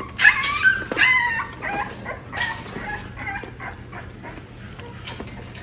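American Bully puppies whining: a few short, high cries that bend up and down in pitch in the first second and a half, then fainter, scattered whimpers.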